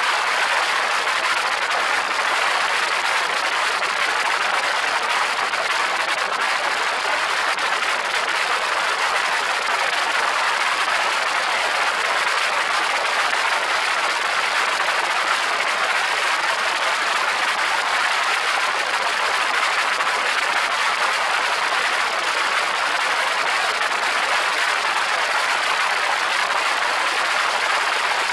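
Steady rush of airflow and engine noise from a small open-cockpit propeller plane in flight, picked up by a camera mounted on the outside of the aircraft. It is an even, unbroken hiss that neither rises nor falls.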